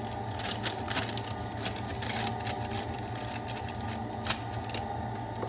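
A dishwasher running with a steady hum, under frequent crackles and rustles of the plastic bag of brownie mix being cut open and handled.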